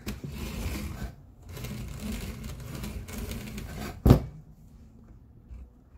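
Long leather lace being drawn through the stitching holes of a leather rifle scabbard, a dry rasping rustle in two pulls, the second longer. A single sharp knock just after four seconds is the loudest sound.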